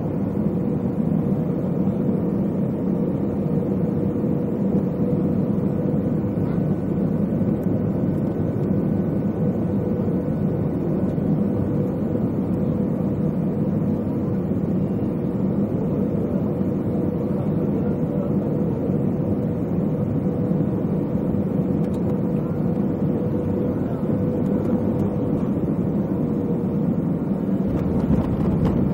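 Airbus A320 cabin noise: a steady drone of engines and airflow with a faint steady whine running through it.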